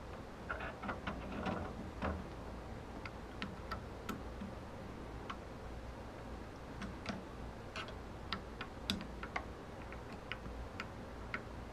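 Faint, irregular small metal clicks and ticks from a homemade steel knob being fitted onto a stereo receiver's volume control shaft and its set screw worked with an Allen key.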